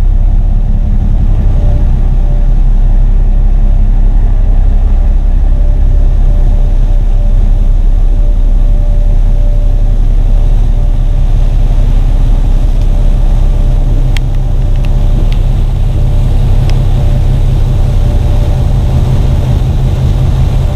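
Car ferry under way: a loud, steady low rumble of the ship's engines and wake, with wind buffeting the microphone on the open deck and a faint steady hum. A few light ticks come after about two thirds of the way in.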